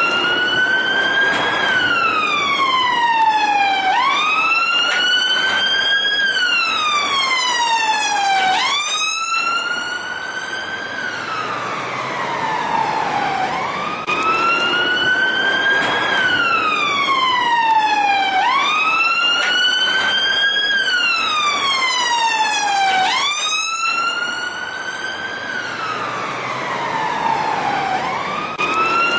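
London police car siren on the wail setting: a tone that climbs for a second or two, then falls slowly for a few seconds. The cycle repeats about every four and a half seconds.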